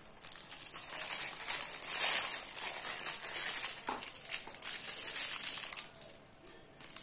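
Clear plastic piping bag filled with melted white chocolate crinkling and crackling as it is handled, loudest a couple of seconds in, dying away about a second before the end.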